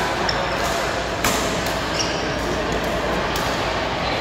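Badminton racket strikes on a shuttlecock, sharp clicks a second or more apart with the loudest about a second in, over a steady background of noise in a large, echoing hall.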